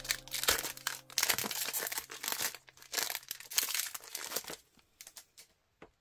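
Foil wrapper of a Pokémon trading-card booster pack crinkling and tearing as it is opened by hand, a run of crackles that stops about four and a half seconds in.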